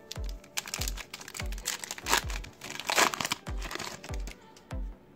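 Foil wrapper of a Topps Chrome baseball card pack crinkling and tearing as it is ripped open, loudest about two and three seconds in. Background music with a steady bass beat plays underneath.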